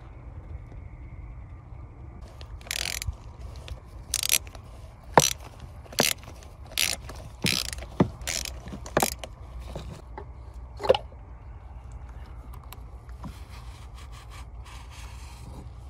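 Ratchet wrench loosening the oil filter housing cap on a Mercedes W140 engine for an oil change: a run of about ten short ratchet bursts over several seconds, then one more a couple of seconds later.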